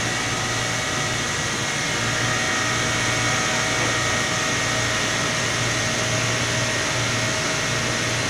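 Drilling rig machinery running: a steady mechanical noise with a constant low drone and a thin, high steady whine.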